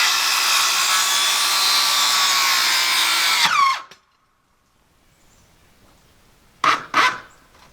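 Corded electric saw's motor running at a steady high speed, then released and winding down to a stop about three and a half seconds in. Two sharp knocks follow near the end.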